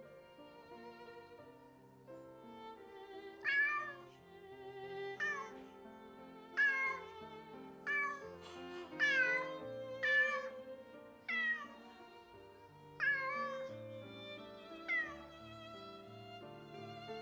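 Domestic cat meowing repeatedly, calling for its owners: about nine short calls spaced a second or two apart, starting a few seconds in, over soft violin music.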